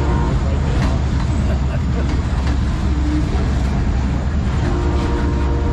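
Diesel freight locomotives running under power with a steady low rumble as the train pulls out. The locomotive's air horn cuts off just after the start, and a steady horn-like tone comes in again near the end.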